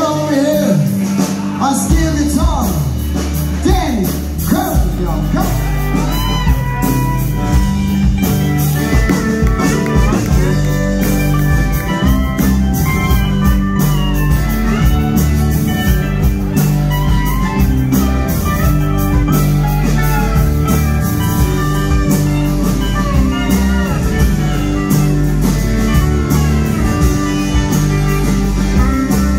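Live country band playing: pedal steel guitar with sliding notes over electric bass, drums and electric guitar, with a steady beat.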